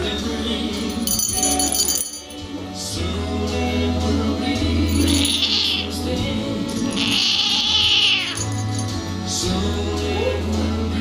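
Background music with a steady bass, over which a cat cries out twice, about five and seven seconds in, as a finger pokes at it.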